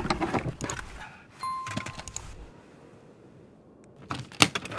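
Sharp metal clicks and scrapes of a screwdriver being worked at a car's steering column, with a short ringing ding about one and a half seconds in and a few more clicks near the end.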